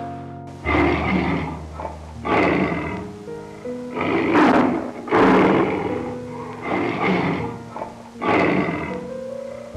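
An animal roaring over and over, about one loud roar every second and a half, over background music with sustained notes.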